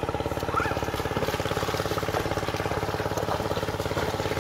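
A small engine running steadily with a rapid, even beat.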